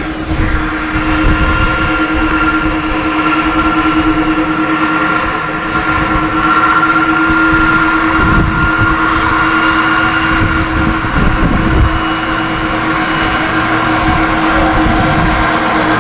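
Airliner jet engines on an airport apron: a steady loud roar with a constant hum and a high whine, over a low rumble.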